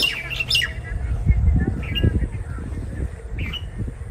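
Birds chirping in short calls, over an irregular low rumbling with soft thuds that is loudest in the first half.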